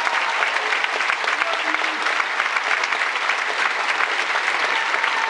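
Large theatre audience applauding steadily: dense, even clapping after a ballet number, as the dancers take their bow.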